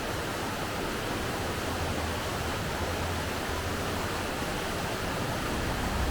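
Steady rushing noise with a low, uneven rumble underneath.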